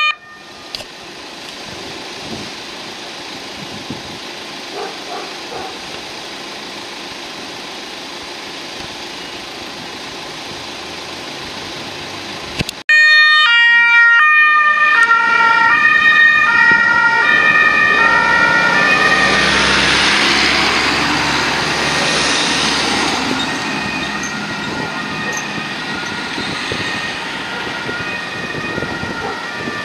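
Low road traffic noise for about the first 13 seconds. Then a Kia Niro Electric police car's two-tone siren starts suddenly, switching back and forth between a high and a low tone, over the noise of vehicles passing close by. The siren slowly fades over the last several seconds.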